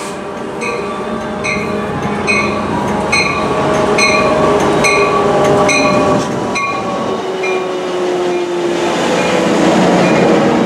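Trinity Railway Express bilevel commuter train arriving and rolling past at low speed, its bell ringing about once a second until about two-thirds of the way in. Under the bell is the rumble of the wheels on the rail, with squealing tones that slide slowly downward as the train brakes toward a stop.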